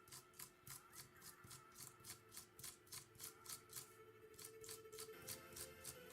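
Faint background music: a steady ticking beat, about four ticks a second, over held notes that change about five seconds in.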